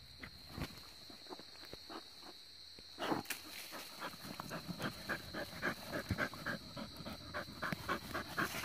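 A dog digging into a burrow: faint scrapes and clicks of claws in soil, then from about three seconds in it pants hard, about three breaths a second.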